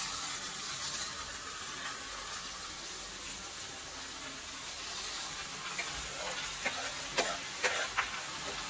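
Onions frying in oil in a pan, a steady soft sizzle, as chopped leafy greens are pushed off a plastic cutting board into it with a knife. About six seconds in come a few short scrapes of the knife blade across the board.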